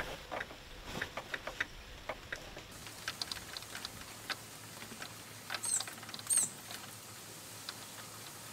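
Scattered light clicks and taps of hydraulic hose fittings being handled and threaded onto the ports of a sawmill toe-roller's hydraulic cylinder, with two brighter metallic clinks a little past the middle.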